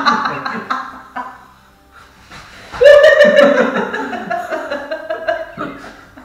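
People laughing hard: the first round of laughter dies away, then a woman's loud laugh breaks out about three seconds in and slowly trails off.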